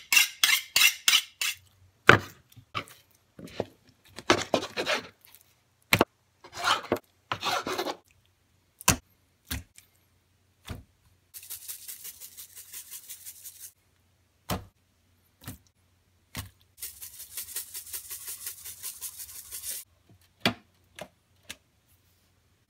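A kitchen knife drawn quickly back and forth along a honing steel, about half a dozen strokes in the first second and a half. Scattered scrapes and knocks of food preparation follow, then two spells of steady hiss of a few seconds each.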